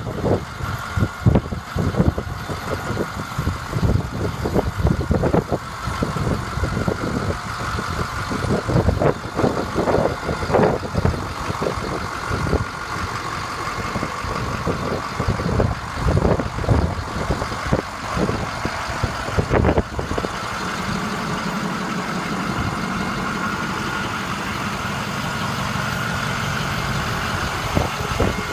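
Ford F-650 medium-duty diesel dump truck idling, with irregular crunching footsteps on gravel over the engine for about the first twenty seconds. After that the footsteps stop and only the engine's steady idle hum remains.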